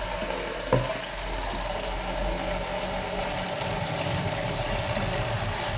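Hot water running from a kitchen tap into a sink basin, filling it, with a short knock about a second in.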